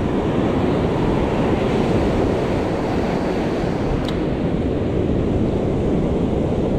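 Heavy surf breaking and washing up a sandy beach, with strong wind buffeting the microphone: a steady, dense wash of noise.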